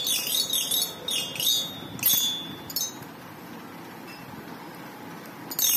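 Children's toy xylophone with coloured metal bars struck with a wooden mallet: about eight quick ringing notes over the first three seconds, then a pause, and more strikes near the end.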